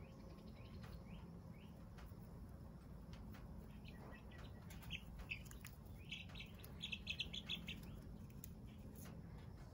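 Young chicks chirping softly while resting, a few faint, short falling peeps at first, then a quick run of about half a dozen chirps around seven seconds in.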